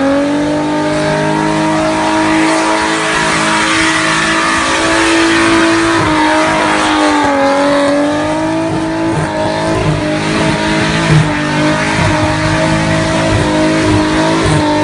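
Holden VL Calais Turbo's turbocharged 3.0-litre straight-six held at high, steady revs in a burnout, the rear tyres spinning on the road with a constant hiss of tyre noise. The revs dip briefly about halfway through and climb back. There is a single sharp crack about three-quarters of the way through.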